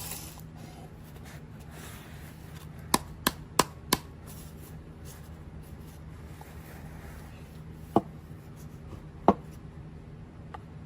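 Sharp clicks and knocks from handling the Bodum Bistro blade coffee grinder: four quick clicks about three seconds in, then two more single knocks later, over a low steady hum.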